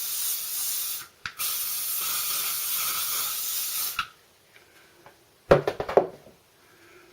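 Aerosol hairspray can spraying in two bursts: the first cuts off about a second in, and after a brief break a second burst runs for nearly three seconds. A short clatter follows about a second and a half later.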